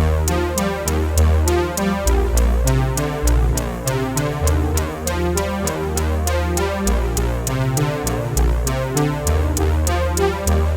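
Electronic background music: synthesizer over a deep bass line with a steady drum-machine beat.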